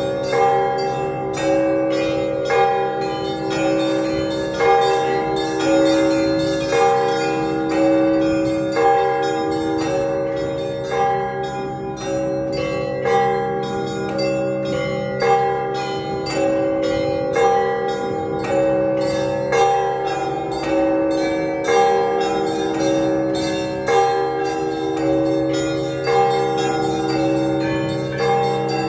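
Orthodox church bells rung by hand in a full peal: small bells struck in a fast, steady pattern over deeper bells, repeating with the loudest strokes about every two seconds.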